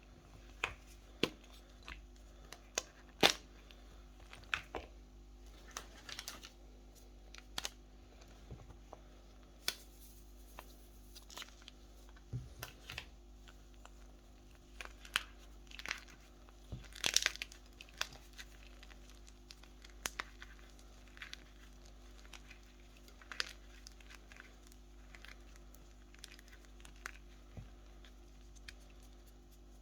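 Sports chalk being crumbled and crushed by hand, giving irregular sharp cracks and crinkles with a quick cluster of them a little past the middle.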